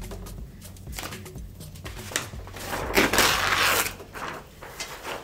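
Light newsprint sketch-pad paper being torn along the hard edge of a picture frame and handled, crinkling and rustling, with a louder, longer rip about three seconds in.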